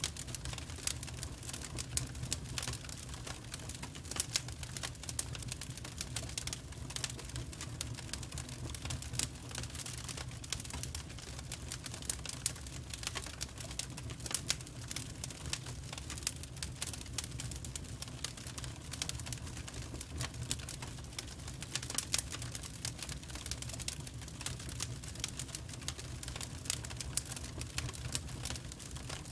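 Wood fire burning, with the firewood crackling and popping in quick irregular snaps over a steady low rumble.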